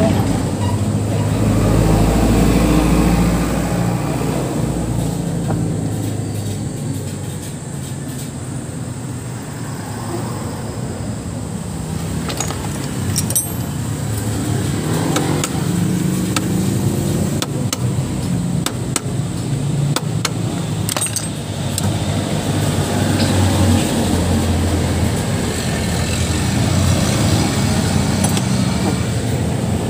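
Motor vehicle engines running nearby, a continuous low rumble that rises and eases. A few light metallic clicks from hand tools at the scooter's magneto come through near the middle.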